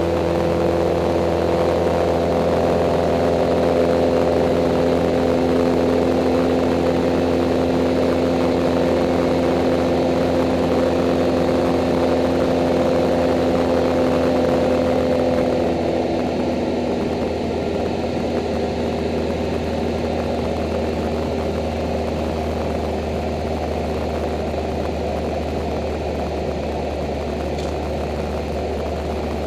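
Single-engine Cessna's piston engine and propeller droning steadily, heard from inside the cabin. About halfway through the engine note changes and the drone gets a little quieter, as if power is eased back.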